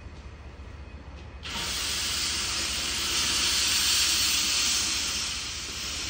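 C12 steam locomotive venting steam from its cylinder drain cocks: a loud hiss that starts suddenly about a second and a half in and cuts off near the end, over a low steady hum from the standing engine.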